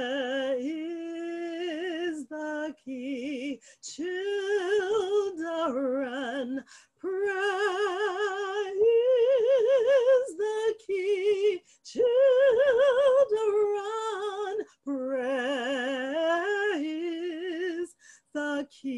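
A woman singing solo and unaccompanied, with a wide vibrato on long held notes, in phrases broken by short pauses for breath.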